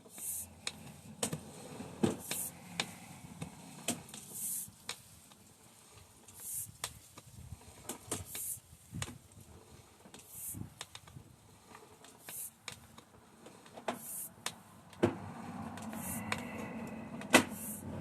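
Irregular sharp clicks and short hissing scrapes over a low hum: handling noise of a sewer inspection camera's push cable being fed down the line. The noise thickens near the end, with two loud clicks.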